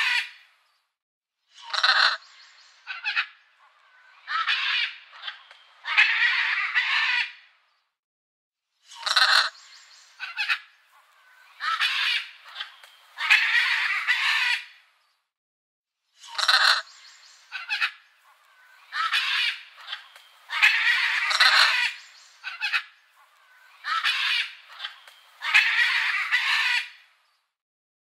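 Macaws squawking: harsh calls in clusters of a few seconds, with short silent gaps between them.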